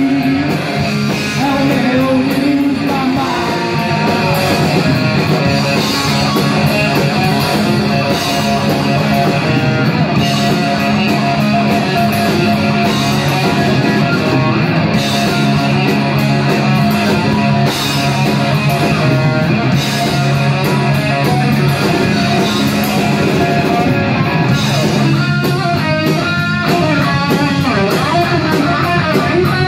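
A live rock band playing loud in a small room: electric guitars, bass guitar and drums, with a voice singing over them in the first few seconds.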